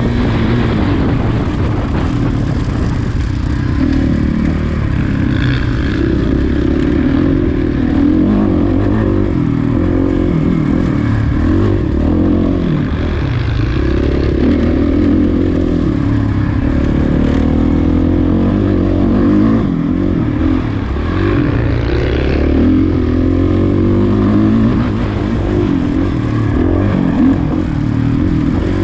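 Off-road racing engine running hard under load, its pitch rising and falling again and again as the throttle is worked through a lap of an off-road grand prix course.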